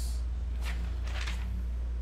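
Steady low hum, with a few faint rustles as a printed paper sheet is handled.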